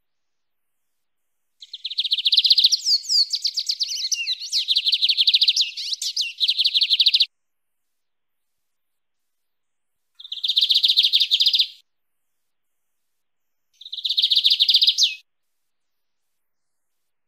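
Lined seedeater (bigodinho) singing its wild-type 'mateiro' song: one long, fast, high trilled phrase lasting about six seconds, followed by two shorter trills of about a second and a half each.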